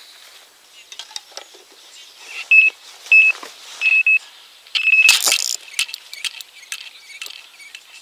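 Electronic carp bite alarm beeping four times in quick succession, the last beep longest, signalling a bite on the rod; a loud burst of noise and scattered clicks follow.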